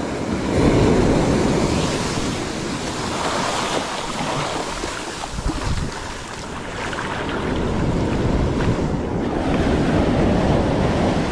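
Ocean surf washing in, with wind buffeting the microphone; the rush swells and eases over several seconds.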